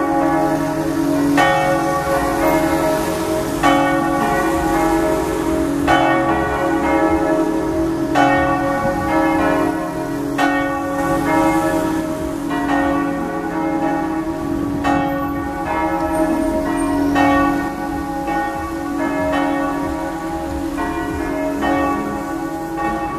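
Church bells swinging in a full peal from the tower, several bells overlapping, with a fresh stroke about every two seconds over a continuous ringing hum. The bells are ringing for Sunday mass.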